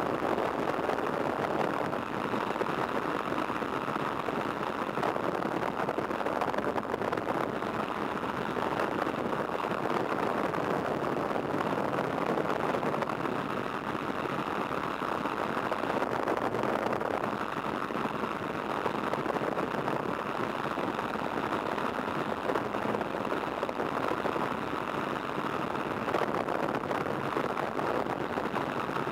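de Havilland Tiger Moth biplane in flight: its Gipsy Major four-cylinder engine runs steadily under a heavy, even rush of slipstream over the open cockpit, heard from the pilot's helmet.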